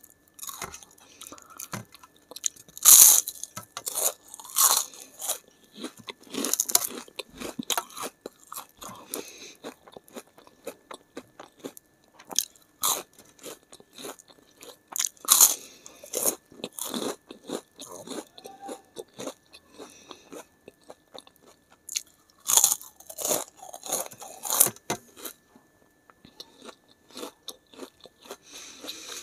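Close-miked eating of crisp fried sabudana papad: a run of sharp crunches and chewing, with the loudest bites a few seconds in, about halfway through, and in a cluster about three quarters of the way through.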